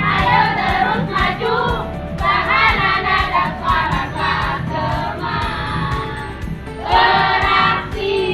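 Group of children singing together over backing music with a steady beat.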